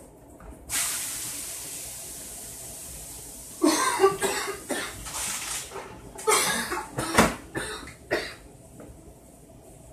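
A man coughing, a fit of about eight loud coughs over some four seconds. It is preceded by a sudden hissing rush about a second in that fades away over roughly three seconds.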